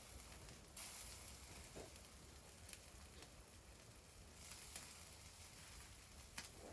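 Faint wood fire: a soft steady hiss with a few sharp crackles and pops now and then.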